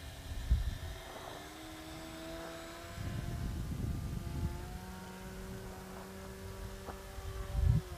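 Micro F3A pattern RC plane's electric motor and propeller whining faintly overhead; the pitch rises about a second in, holds with small changes through the manoeuvre, and falls away near the end. Wind buffets the microphone with low rumbles, loudest about half a second in and just before the end.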